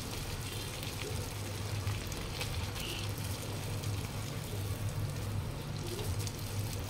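Bread slices frying in hot oil in a kadhai: a steady sizzle with fine crackling, over a low steady hum.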